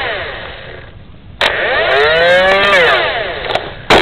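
Flywheel motors of a Nerf Cam ECS-12 blaster whirring, their pitch winding down over the first second. After a click about a second and a half in, they spin up and wind down again, with another sharp click near the end.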